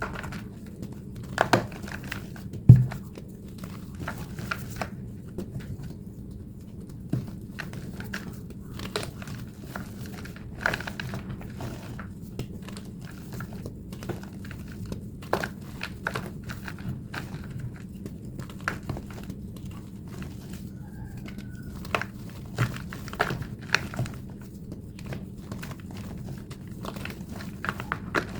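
Thick block of plain white gym chalk being squeezed and crushed by hand: irregular squeaky crunches and crackles, sped up, over a low steady hum.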